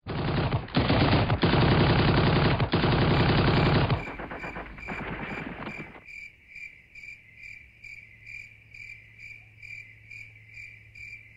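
Loud, dense rattling noise for about four seconds, fading out by about six seconds. It gives way to an evenly repeating high chirp, about two and a half a second, over a low hum.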